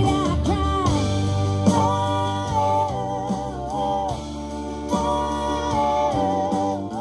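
A rock band playing live: a woman sings long held notes over electric and acoustic guitars and drums.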